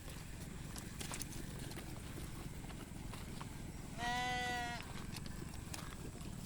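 A sheep bleats once, a single call lasting just under a second about four seconds in, its pitch steady and dropping slightly at the end.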